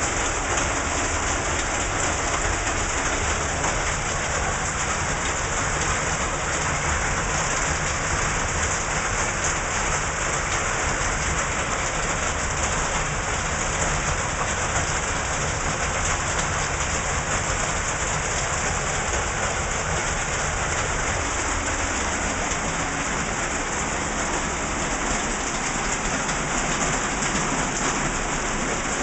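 Heavy rain falling steadily, a constant loud hiss of water on surfaces.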